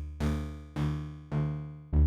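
Sylenth1 software synth playing a plucked, distorted saw-wave patch with white noise mixed in: one low note struck about four times, each hit sharp and decaying quickly, with bright metallic upper tones that are duller on the last note.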